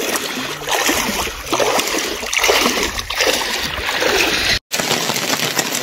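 Shallow lake water splashing and lapping around a person wading at the shoreline, a steady rushing noise with faint voices in it; it drops out briefly near the end.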